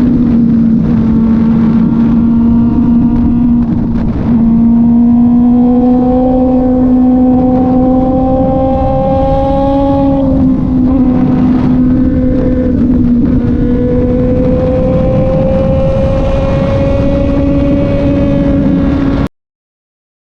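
Kove 450 Rally motorcycle's single-cylinder engine running under way, its note slowly rising as it pulls, with a brief dip about ten seconds in before it climbs again, over wind and road noise. The sound cuts off abruptly near the end.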